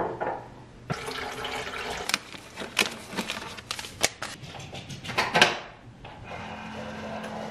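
Water rushing steadily with sharp clicks and knocks of a cupboard and cups being handled; it dies away about six seconds in, leaving a quiet steady hum.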